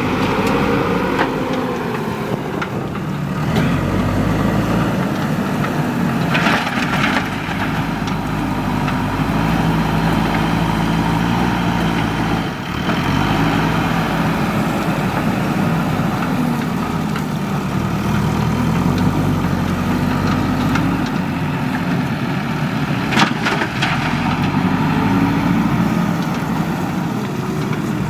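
Diesel engine of a JCB 3DX backhoe loader running and repeatedly rising and falling in pitch as it works under load. There is a brief rush of noise about six seconds in and a few sharp clicks near the end.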